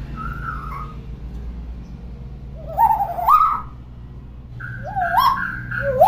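Hill myna whistling and calling: a short falling whistle at the start, then two rising, stepped calls about three and five seconds in, the second with a steady held whistle under it.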